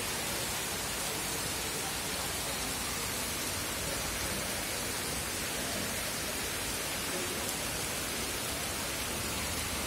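Steady heavy rain falling, an even hiss with no breaks.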